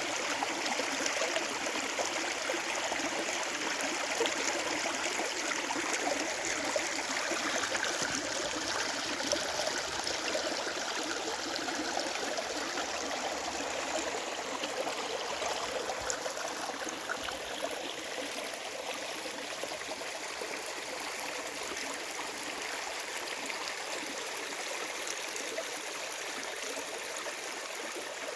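A stream flowing steadily: a continuous rush of running water that eases off slightly after the middle.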